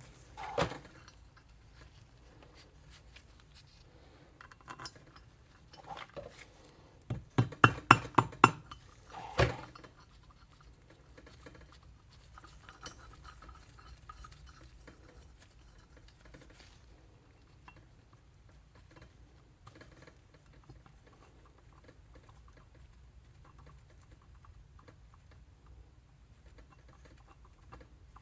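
Metal turbo parts and tools clinking and tapping as the center housing is handled and aligned: a few sharp clicks, a quick run of about six loud clinks a quarter to a third of the way in, then only faint scattered handling ticks.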